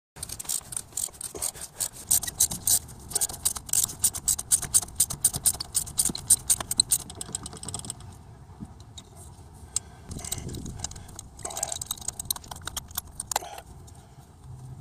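Ratchet wrench clicking as it backs a corroded spark plug out of the V6's cylinder head. The pawl clicks in quick runs for about the first seven seconds, then in a few shorter runs later on.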